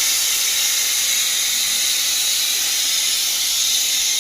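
Steady rain falling, an even constant hiss with no breaks.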